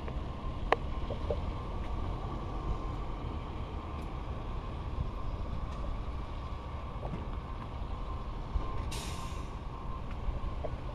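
Hi-rail maintenance-of-way boom truck running as it rolls along the yard tracks: a steady low rumble with a faint steady whine. A short hiss of air about nine seconds in.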